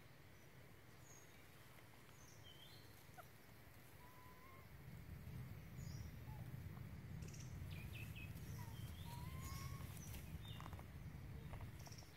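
Faint scattered chirps and short calls of small birds, with a low rumbling noise that rises about five seconds in and a few faint clicks.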